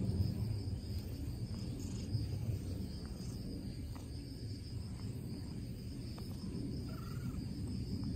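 Domestic cat purring in a steady low rumble as it is stroked, over a steady high trill of insects.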